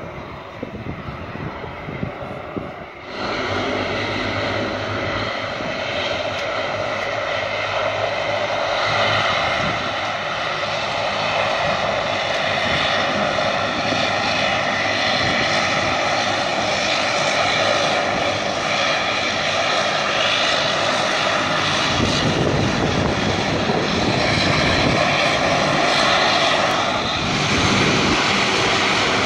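De Havilland Canada DHC-8-300 (Dash 8) turboprop taxiing after landing, its two Pratt & Whitney Canada PW123 engines and propellers running with a steady droning whine. The sound jumps sharply louder about three seconds in and stays loud.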